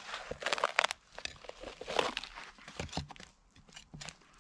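Wood cracking and tearing in irregular bursts of crackling as a slab is pried and split off the side of a sawn tree stump with a flat tool driven into its top edge.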